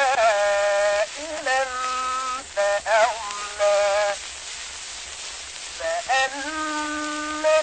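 A solo voice chanting a melody in long held notes that waver with vibrato. The voice breaks off for about two seconds of hiss in the middle and comes back near the end.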